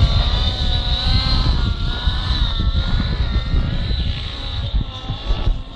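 Nitro-engined radio-controlled helicopter in flight: a high engine and rotor whine whose pitch wavers up and down as it is thrown around. Wind buffets the microphone with an uneven low rumble.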